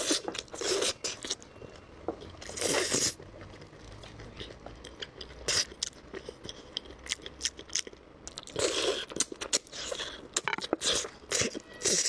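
Close-miked biting, chewing and crunching of braised pork on the bone, in irregular bursts with short pauses between them, loudest about three seconds in and again near nine seconds. The meat was stewed until scorched.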